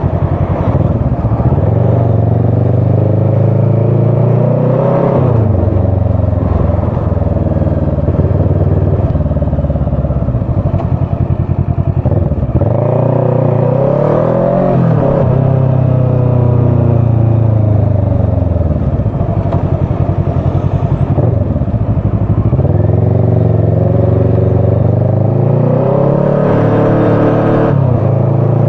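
Motorcycle engine heard from the rider's seat, running steadily and pulling away several times, its pitch rising under throttle and falling as it eases off.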